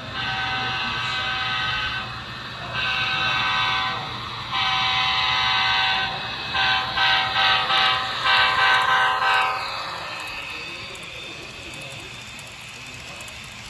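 Sound-equipped HO scale model of a CSX SD70MAC diesel locomotive blowing its chime horn through its onboard speaker: three long blasts, then a quick run of short toots, the last one sliding down in pitch as it cuts off. After that comes a fainter steady sound of the train rolling by.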